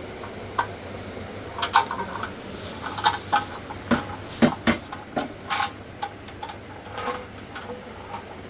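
Metal parts of an industrial sewing machine stand clinking and knocking as they are handled and fitted: about a dozen sharp knocks, some ringing briefly, bunched in the middle, over a steady low hum.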